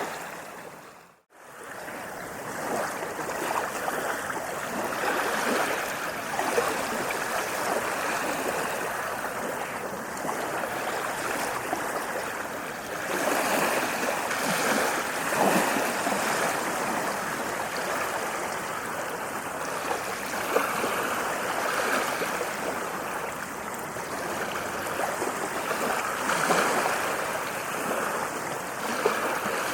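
Ocean waves washing on a shore: a steady rushing wash that swells and eases. About a second in it fades to silence and straight back, as at the join of a looped recording.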